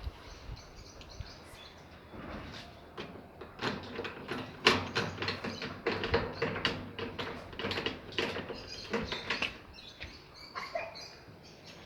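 Irregular clattering, knocks and scrapes of parts being handled and fitted while a top-load washing machine is put back together, busiest through the middle and thinning out near the end.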